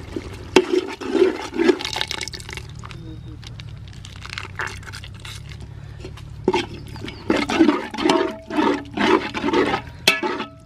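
A perforated steel skimmer stirring yogurt into wet mutton keema masala in a large metal pot: wet, sloppy mixing strokes with sharp clicks of the ladle against the pot. There is a quieter spell in the middle, then the stirring picks up again.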